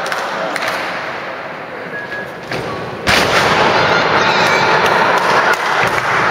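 A wrestler slamming down onto the ring canvas with a loud bang about three seconds in, followed by a couple of seconds of loud crowd noise ringing through the hall.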